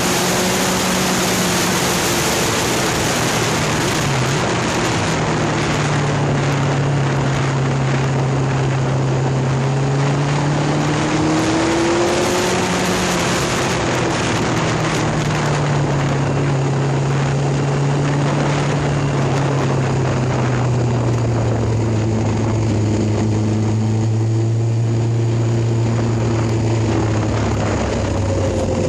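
Motorbike engine running on the move, its pitch slowly rising and falling with road speed, under heavy wind noise on the phone's microphone that eases after the first few seconds.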